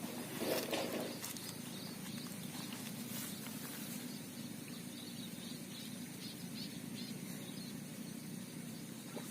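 Outdoor ambience: a steady low background hum, with faint, rapidly repeated high chirping through the middle of the stretch.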